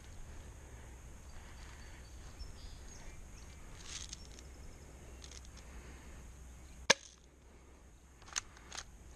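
Airsoft gun shots: one loud, sharp shot about seven seconds in, then two fainter snaps close together about a second and a half later.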